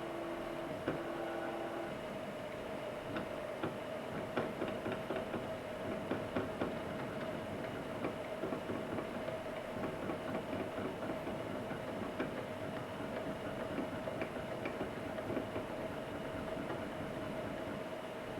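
A machine running with a steady hum, joined by dense, irregular clicking and rattling that thickens about three seconds in.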